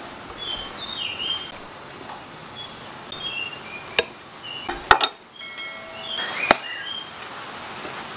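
Large chopping knife cutting into a pumpkin on a wooden chopping board: three sharp knocks, about four, five and six and a half seconds in. Small birds chirp in the background.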